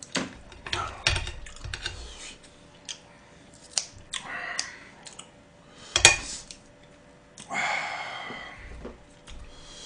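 Tabletop clatter: chopsticks and kitchen scissors clicking and knocking against plates as sticky seaweed is pulled apart and snipped, with the sharpest click about six seconds in. About a second of rustling hiss follows shortly after.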